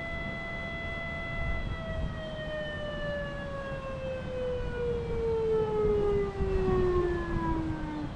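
Quarter-scale Whelen WPS-2802 electronic siren sounding a steady alert tone, then sliding steadily down in pitch until it stops: the end of its short alert test signal.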